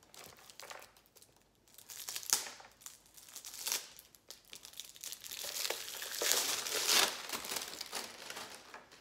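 Plastic wrapping crinkling as a crow decoy is pulled open and handled, in irregular rustling bursts with a couple of sharp crackles and a longer, louder stretch of crinkling past the middle.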